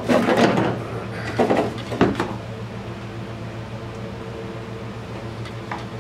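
Hand work on a carburetor in an engine bay: metal parts and tools handled with three brief clattering scrapes in the first two and a half seconds. A steady low hum runs underneath.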